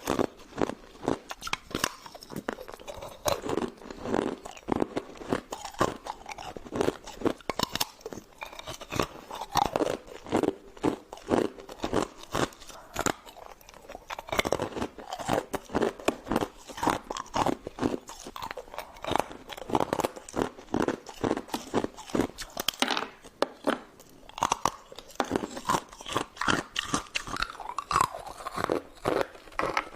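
Close-up crunching and chewing of ice cubes: a rapid, irregular run of sharp cracks and crackles as the ice is bitten and ground between the teeth.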